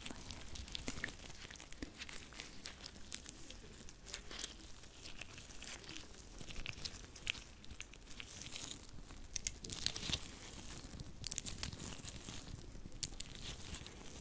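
Hands rubbing and pressing together, with a dense, irregular run of small crackles and clicks.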